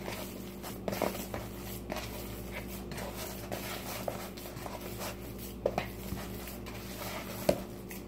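Hands mixing raw ground beef meatloaf mixture in a bowl: soft, scattered squishes and light taps, a few sharper ones, over a steady low electrical hum.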